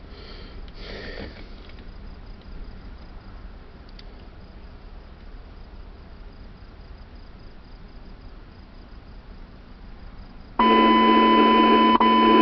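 Scanner radio with a low static hiss, then about ten seconds in a loud, steady alert tone switches on abruptly and holds: the attention tone that heralds a broadcast severe thunderstorm warning.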